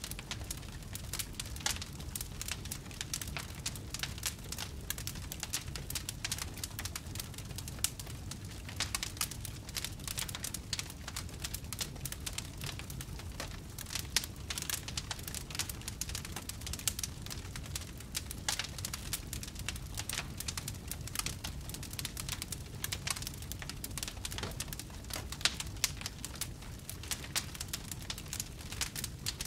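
Wood fire in a fireplace crackling and popping in an irregular, dense stream of sharp snaps, over a steady low rumble.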